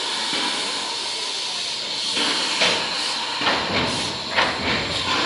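ČSD class 314 steam locomotive 314.303 hissing steam steadily, with a few short, sharp sounds over the second half.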